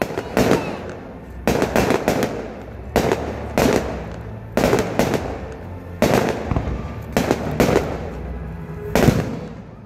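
Aerial firework shells bursting overhead: a string of sharp, echoing bangs, about one a second, some coming in quick clusters of two or three.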